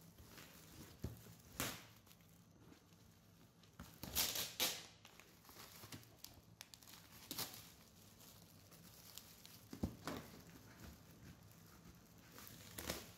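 Clear plastic shrink-wrap film being torn and pulled off a cardboard kit box, crinkling and rustling in separate bursts, loudest about four seconds in.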